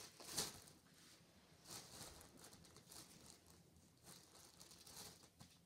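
Clear plastic bag crinkling and rustling faintly in short, scattered bursts as hands rummage through the stickers inside it, the loudest crinkle just after the start.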